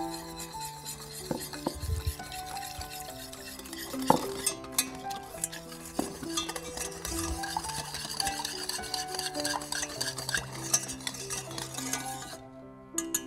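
Wire whisk stirring and clicking against a stainless steel saucepan as a powder is whisked into water. The whisking stops shortly before the end, under steady background music.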